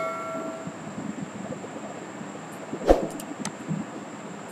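A bell-like chime fading out in the first moment, then low background noise with a faint steady high whine. There is a soft thump about three seconds in, followed by a few faint mouse clicks.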